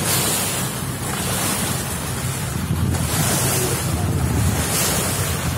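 Wind buffeting the microphone and sea water washing against a small boat, in surges every second or two, over the low steady hum of the boat's engine.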